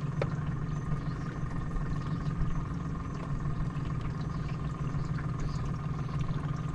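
A boat's motor running steadily at low speed: a constant low hum with a faint, thin whine above it.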